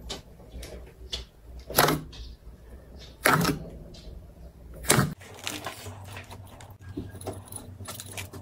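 Thick slime being pressed and squished by hand, making wet squelching and popping sounds. Three loud pops come about two, three and a half and five seconds in, with softer clicks and crackles between them.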